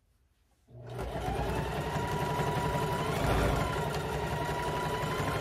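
Singer Heavy Duty sewing machine starting up about a second in, then running steadily as it stitches through the thick batting-filled fabric strips of a jelly roll rug.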